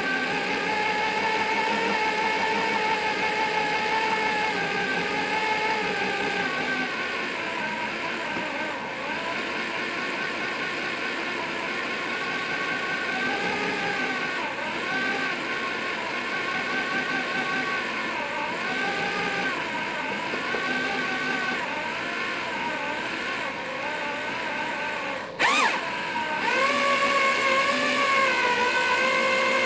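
An 8-amp electric drill turning a Wondermill Junior hand grain mill through a drill-bit adapter, its steel burrs grinding peanuts into peanut butter. The motor runs with a steady whine whose pitch wavers as the trigger speed and load shift. About 25 seconds in it cuts out briefly with a click, then runs again a little faster.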